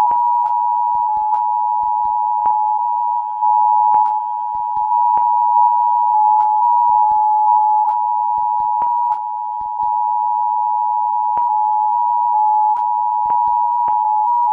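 Emergency Alert System attention signal: two steady tones sounding together as one harsh, buzzing alarm tone, with scattered sharp clicks.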